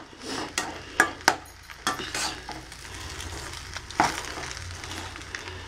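Spatula stirring fried rice in a steel kadai, scraping with several sharp knocks against the pan over a soft sizzle from the low flame.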